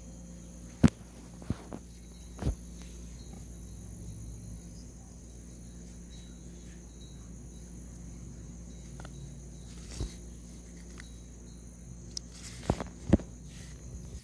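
Steady high-pitched insect drone, with a few sharp knocks and clicks as speared peacock bass are handled on the grass: a loud one about a second in, a few more over the next couple of seconds, and two more near the end.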